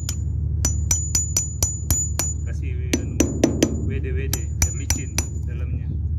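Claw hammer striking a steel drift against the locking pin of a Kenter anchor-chain joining shackle: about fifteen sharp, ringing metal strikes in quick runs with short pauses between. A steady low hum runs underneath.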